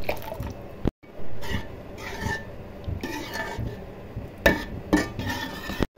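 A metal spoon stirring thick chana dal in a stainless-steel pot, scraping against the pan, with two sharper clinks near the end.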